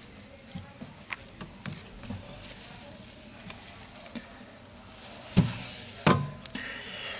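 Handling noise: light rustling and scattered small clicks, with two sharp knocks a little over five and about six seconds in.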